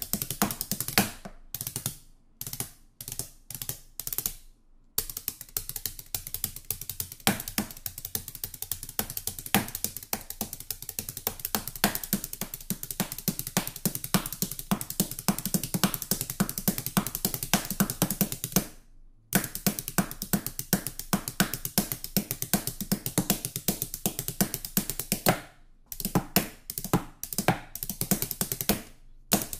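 Hot Rods bundled-dowel drumsticks drumming fast, steady rolls and grooves on a stone kitchen countertop. The playing thins to a few separate accents a couple of seconds in and again near the end, with a short full stop about two-thirds of the way through.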